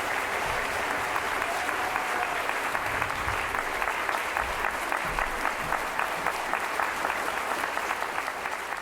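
A concert audience applauding steadily, a dense patter of many hands clapping.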